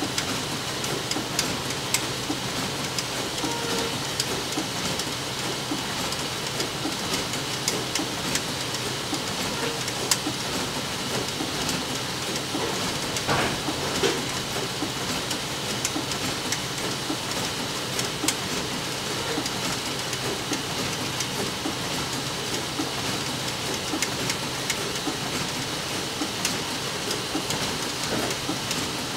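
Steady hiss of rain-like noise, dotted with small scattered ticks, with a brief louder rustle about thirteen seconds in.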